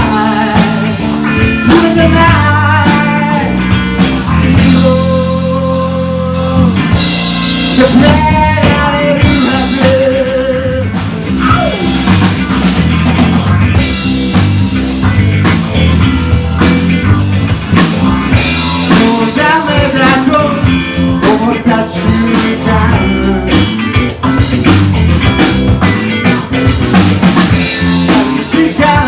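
A song played by a band, with a sung melody over drums and guitar.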